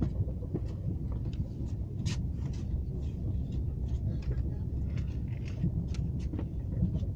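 Passenger train carriage running at speed, heard from inside the compartment: a steady low rumble of wheels on rail, with irregular light clicks and rattles throughout.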